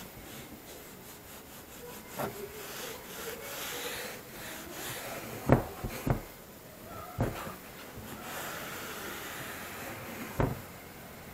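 Cloth rag rubbing along a curved steel sanggot blade, with five sharp knocks as the blade is shifted against the tile floor. The loudest two knocks come close together about halfway through.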